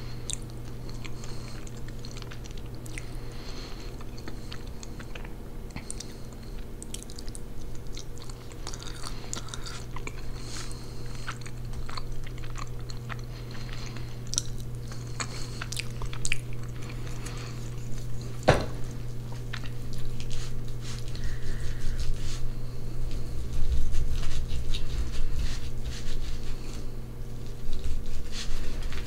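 Close-up mouth sounds of chewing and biting roast pork (pernil) with rice and beans, mixed with clicks of a plastic fork scraping an aluminium foil tray. A steady low hum runs underneath, and one sharp click comes about two-thirds of the way through.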